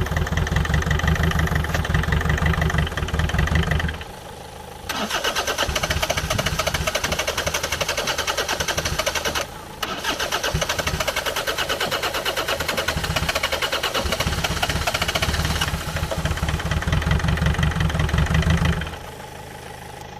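Starter cranking the Freelander's 2.0 L-series turbodiesel in long bursts, with short breaks about four and nine and a half seconds in and a stop near the end. The engine fires only on the sprayed start aid and will not keep running on its own, a fault later traced to an air leak in the fuel pipes.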